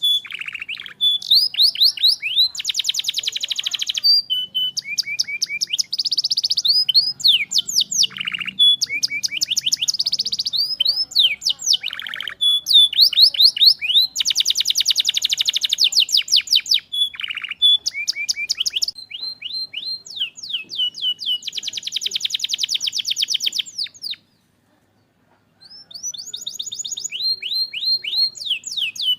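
Domestic canary singing a long, loud song of fast trills and rolls, phrase after phrase, broken once by a short silence near the end.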